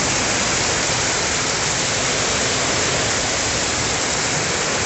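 Heavy rain falling in a steady downpour, a dense even hiss with no let-up.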